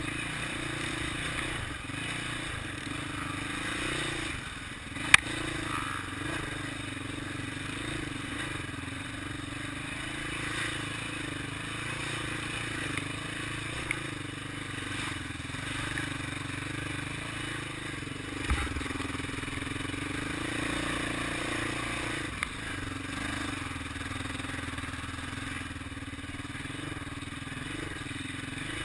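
Sport quad's single-cylinder four-stroke engine running steadily while riding a bumpy dirt trail, heard from the quad itself. A sharp knock comes about five seconds in, with a few lighter knocks later.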